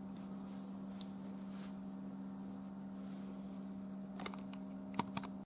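Climbing gear being handled: carabiners and rope give a few faint clicks and rustles, then sharper metallic clicks near the end, over a steady low hum.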